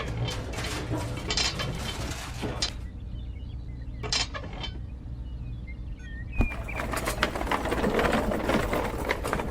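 Small motor of a miniature DIY tractor or mixer running with a steady low hum and irregular clicking and clattering. It goes quieter for a few seconds in the middle, where faint bird chirps come through, then a sharp click is followed by busier clattering.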